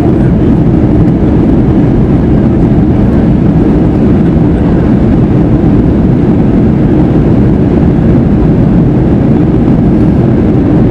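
Loud, steady low rumble inside the cabin of an Airbus A321 rolling along the runway just after landing.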